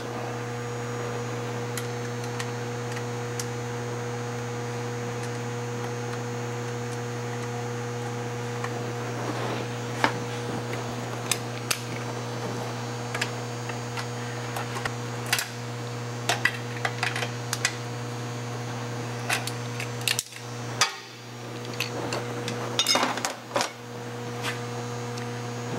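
Steady electrical mains hum, with scattered light metallic clicks and taps from about ten seconds in as nuts are started on the studs holding the clutch slave cylinder to the transmission.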